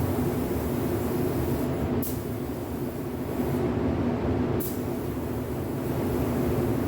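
Steady low rumble of spray booth air movement with the hiss of an automotive spray gun's air over it; the hiss cuts out twice and comes back each time with a short sharp burst as the trigger is pulled again.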